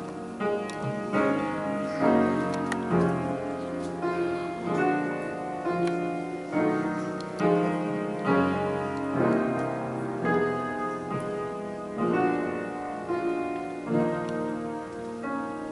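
Piano playing slow, sustained chords, a new chord struck about every second.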